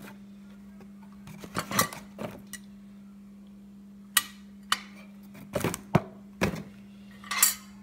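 Ceramic dessert plates and a gold metal wire stand clinking and knocking as they are handled and set down: about eight separate sharp knocks, most of them in the second half.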